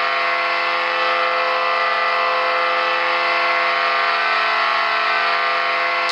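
Hockey arena goal horn sounding one long, steady, loud blast of several stacked tones, signalling a goal.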